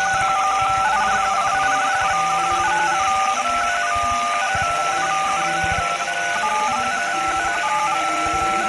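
Electronic emergency-alert tones: a steady tone with a stepping, higher beeping pattern on top, over loud static hiss.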